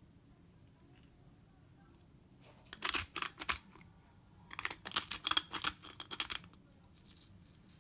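Pepper mill grinding black pepper: two short bouts of rapid gritty clicking, the first about two and a half seconds in and the second a couple of seconds later.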